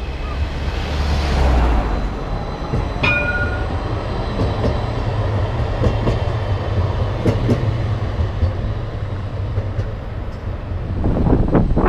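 CAF Urbos 3 tram passing close by on street track: a steady low rumble of wheels and running gear, with a few sharp clicks and a brief high tone about three seconds in. Wind buffets the microphone near the end.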